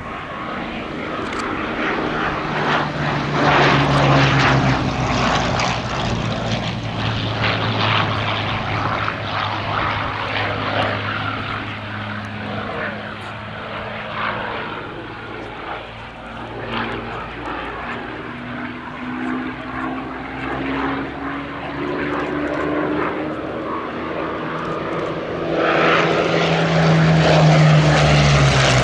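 Hawker Sea Hurricane's Rolls-Royce Merlin V12 engine and propeller in display flight. Its pitch drops as it passes about four seconds in, climbs again as it comes round, and it passes once more, loudest and falling in pitch, near the end.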